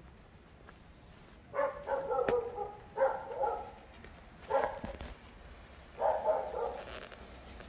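A dog barking in about four short bouts, roughly one every second and a half.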